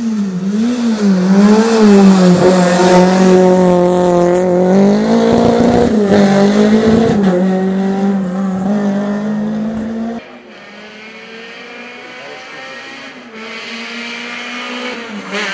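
Renault Clio Group A rally car's engine held at high revs as it comes past close by, its pitch dipping and climbing with lifts and gear changes. About ten seconds in the sound drops abruptly to a quieter, more distant rally engine still running, which swells again near the end.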